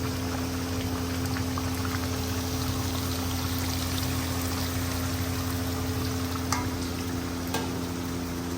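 Duck meat boiling in plenty of water in a cooking pot: a steady bubbling and sizzling, over a steady low hum, with a couple of faint clicks near the end.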